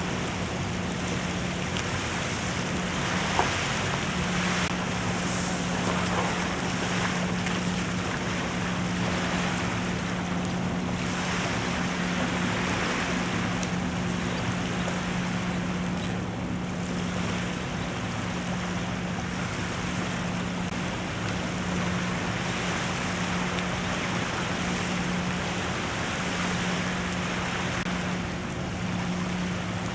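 Wind gusting on the microphone and small waves lapping at the shoreline, over a steady low hum.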